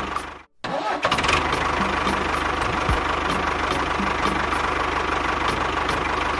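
A motor running steadily with a fast, even pulse, cutting out completely for a moment about half a second in and then running on.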